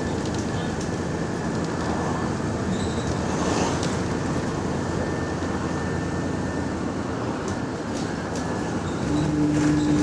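Bus engine and exhaust heard from inside the moving bus, a steady noisy drone with the exhaust leak in it. About nine seconds in, a strong steady low hum cuts in and the noise gets louder.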